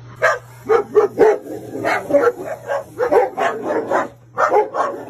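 Dogs barking excitedly at a coiled snake: rapid, repeated barks, about two to three a second, with no break.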